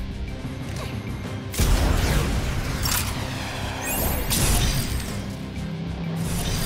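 Cartoon sound effects of a shoulder-held launcher firing a net: a sudden loud blast about one and a half seconds in, then more whooshing and impact effects as the net flies, over background music.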